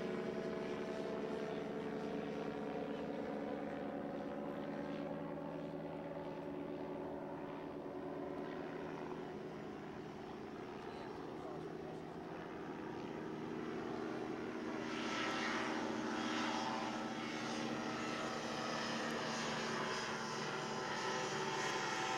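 H-3 Pegasus ultralight's small piston engine and propeller running steadily at low power while it taxis on grass, growing louder as it comes closer about two-thirds of the way through.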